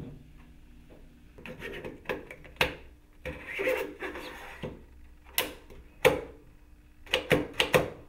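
An AR-15 buffer assembly being pushed into the stock's buffer tube: a scraping, sliding stretch in the middle, with sharp metal clicks and knocks before and after it and several quick clicks near the end.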